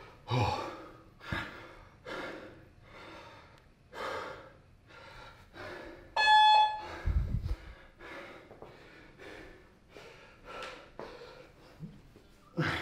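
A man breathing hard and gasping, about one heavy breath a second, winded after an intense workout. About six seconds in, a short electronic beep sounds, followed at once by a heavy low thud.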